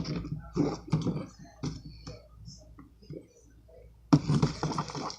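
Homemade glue slime being worked by hand, giving irregular sticky clicks. It goes quieter for a moment, then about four seconds in a denser, steadier run of the same sound starts.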